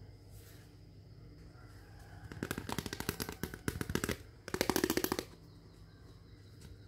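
Rapid crackling clicks of small hard-plastic toy kitchen pieces being handled, in two bursts: one starting a little over two seconds in and lasting nearly two seconds, then a shorter one about half a second later.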